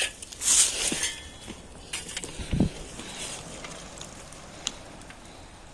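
Forest fire burning close by: scattered crackles and pops, a loud rushing hiss about half a second in, and a short dull thump about two and a half seconds in.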